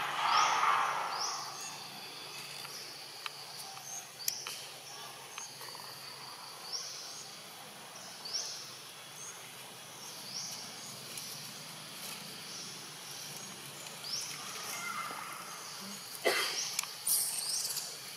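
Outdoor ambience with a short high chirp repeating about once every second or so. A louder noise comes in the first second, and a few sharp louder sounds come near the end.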